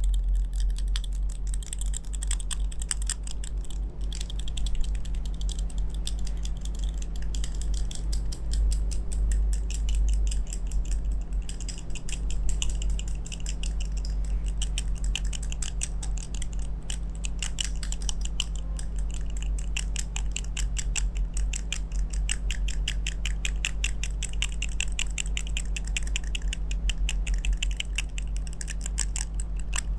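Rapid, fine metallic clicking and scratching of small metal grooming tools, a pick rubbed against the ridged gold coil of a second tool while held to the face. A steady low electrical hum runs underneath.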